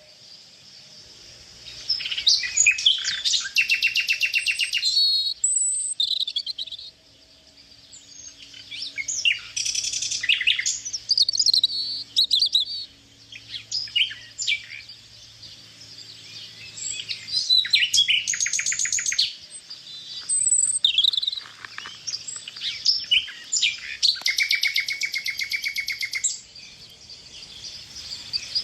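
Songbirds singing: high chirps and fast trilled phrases, each lasting a couple of seconds, repeating with short pauses in between.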